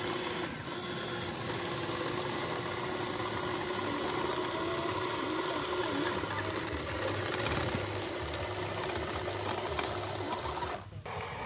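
Electric drive motors and gearboxes of a radio-controlled toy bulldozer whirring steadily as it pushes dirt with its blade and drives off on its tracks. The sound changes abruptly near the end.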